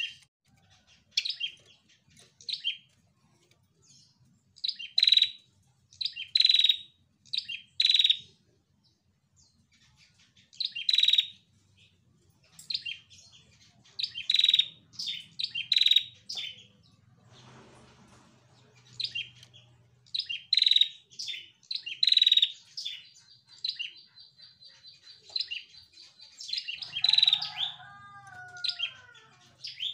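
Female ashy tailorbird (prenjak kepala merah) calling: short, sharp, high chirps in quick bunches with pauses of a second or two between them. Past the middle comes a short steady high trill, and near the end a few lower falling notes.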